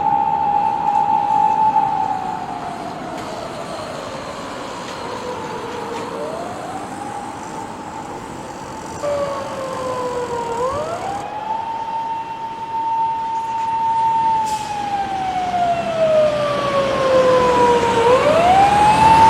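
Japanese police car siren wailing: the tone holds high for a few seconds, slides slowly down over about four seconds, then sweeps quickly back up, repeating every seven or eight seconds. A second siren's wail overlaps it for a while around the middle.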